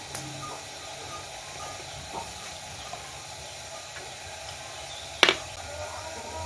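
Steady hiss of food cooking on the stove, with one sharp click about five seconds in.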